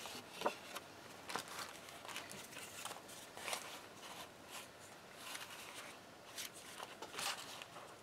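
Faint paper rustling with irregular light taps and clicks: journal pages being turned and paper collage pieces handled and slid over them.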